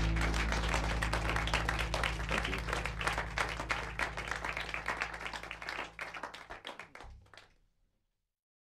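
Applause fading out and stopping about seven and a half seconds in, with the low notes of the band's last acoustic chord dying away beneath it.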